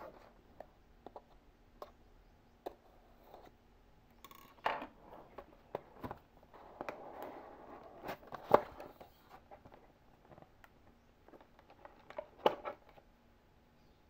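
Cardboard gift box being handled and opened: scattered light taps and clicks, a soft sliding scrape as the lid is drawn off about halfway through, and a few sharper clicks, the loudest just after the scrape.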